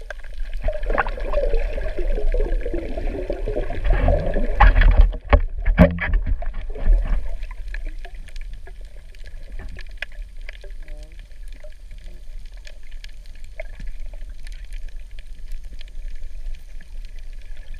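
Muffled underwater sound picked up through a GoPro's waterproof housing: a loud rush of moving water and bubbling in the first seven seconds, then a steadier low water rumble with sparse faint clicks.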